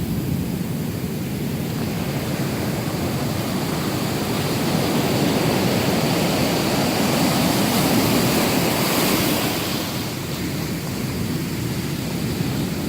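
Pacific surf crashing and washing ashore in a continuous roar of water, building to a louder surge about eight seconds in and then easing off.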